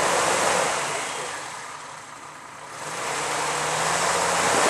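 Off-road Jeep Wrangler YJ's engine running under load as it crawls over uneven ground, its low drone under a heavy rushing noise; the sound drops away about two seconds in and builds back up.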